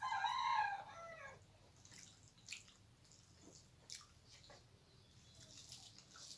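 A chicken calls once, a pitched cry about a second and a half long that drops in pitch at the end. After it come faint clicks and soft squelches from a hand working rice and curry on a plate.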